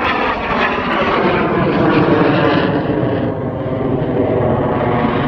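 BAC Strikemaster jet passing with its single Rolls-Royce Viper turbojet, a loud engine whine over rushing noise that falls steadily in pitch as the aircraft goes by.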